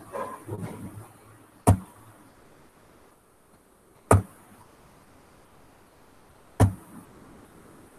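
Three sharp, short knocks, evenly spaced about two and a half seconds apart, above a quiet background.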